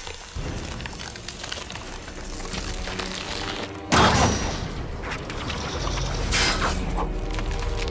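Film sound effects of a steel bridge starting to fail: a low rumble with creaking and cracking, then a sudden loud crash about four seconds in and another burst of cracking around six and a half seconds.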